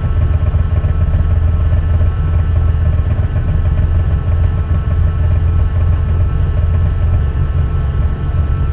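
Peugeot 106 A5 rally car's engine idling steadily, a low even rumble heard from inside the cabin.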